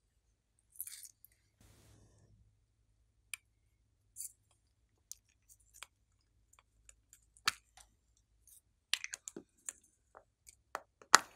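Small plastic toy capsules being opened and handled: scattered sharp plastic clicks and taps, several louder ones in the second half.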